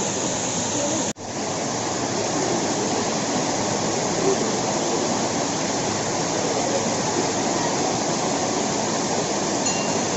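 Waterfall pouring into a pool: a steady rush of falling water, which cuts out for an instant about a second in and then resumes.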